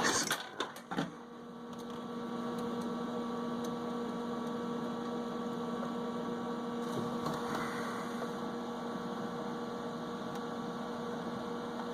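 Steady electrical mains hum with a few faint clicks in the first second.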